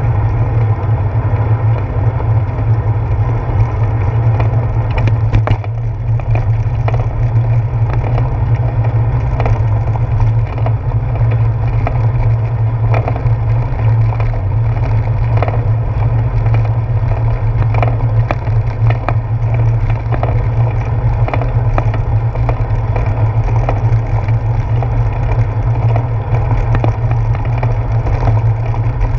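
Bicycle rolling along a wet street, picked up by a handlebar-mounted GoPro Hero 4: a steady low rumble of road vibration and wind, with frequent small knocks and rattles as the tyres run over a brick road surface.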